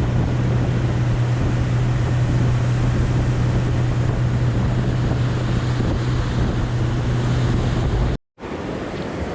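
Boat motor running with a steady low hum under rushing wind noise on the microphone. It cuts off abruptly near the end, leaving quieter wind and water.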